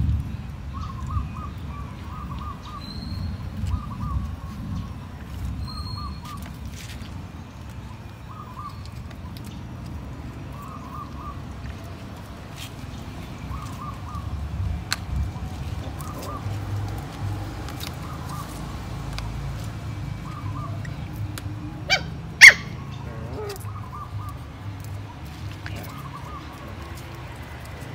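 Two puppies play-fighting, with low dog growling and scuffling. A bird calls in short repeated phrases every couple of seconds, and a single sharp knock about three quarters of the way through is the loudest sound.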